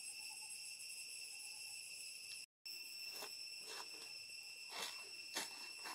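A steady, high-pitched drone of insects. The sound cuts out briefly about two and a half seconds in, and four short, sharp rustling sounds follow in the second half, the loudest near the end.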